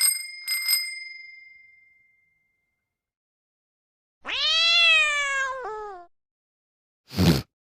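A small bell dings twice in quick succession and rings out. After a pause comes a single cat meow about two seconds long, rising then falling in pitch, and near the end a brief noisy burst.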